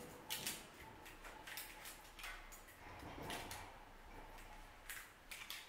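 Faint, irregular clicks and light rattles of a wire mesh cage-trap door being handled as the tabs attached to it are worked off.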